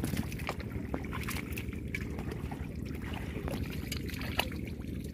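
Hands digging and squelching in wet canal mud, a few faint wet clicks over a steady low rumble of wind on the microphone.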